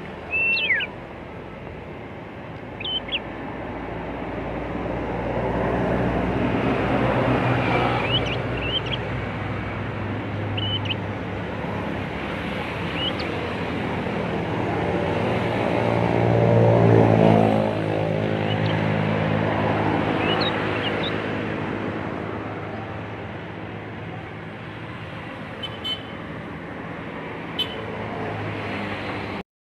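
Young prinia giving scattered short, high chirps, a juvenile practising its calls, over road traffic noise. A motor vehicle's engine hum swells and passes, loudest a little past the middle.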